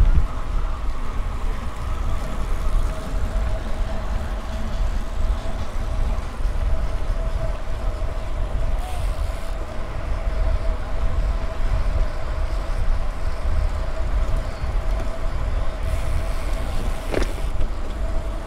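Wind buffeting the microphone and rolling road noise of a bicycle riding along, steady throughout, with a thin steady hum underneath. Near the end a short falling whistle-like sound.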